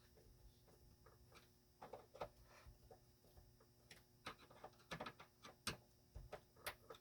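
Near silence with scattered faint clicks and taps, the sound of screws being hand-tightened with a screwdriver into a plastic refrigerator door hinge.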